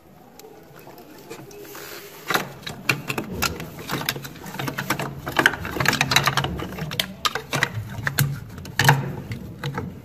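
Plastic overload protector and start relay clicking and knocking as they are handled and pushed onto a refrigerator compressor's terminal pins. The clicks come rapidly and irregularly, starting about two seconds in.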